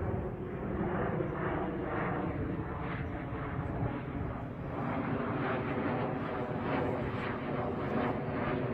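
Steady engine noise of an aircraft flying low overhead.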